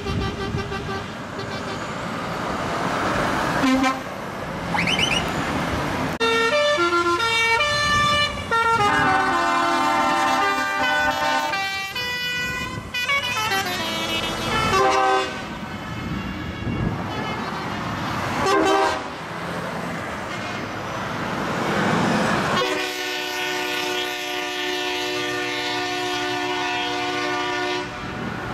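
Trucks driving past sounding air horns, with engine and tyre noise underneath: short horn blasts, a run of multi-note horn sequences stepping up and down in pitch about a third of the way in, and a long held multi-tone chord horn near the end.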